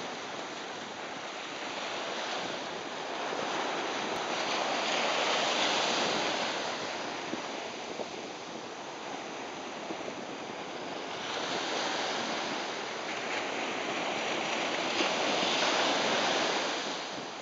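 Atlantic surf breaking and washing up a sandy beach, a steady rushing that swells twice as sets of waves come in.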